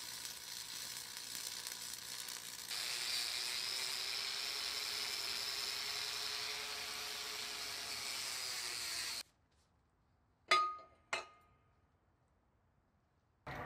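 Stick welder's arc crackling and sizzling for a few seconds. Then an angle grinder grinds the welds on a steel plate, its pitch dipping under load, until it cuts off about nine seconds in. After a pause come two sharp, ringing metal clinks.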